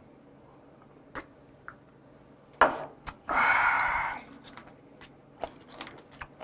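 A man's loud breathy exhale, like a "kyaa" after a shot of soju, a little over three seconds in and lasting under a second, amid faint chewing and mouth clicks.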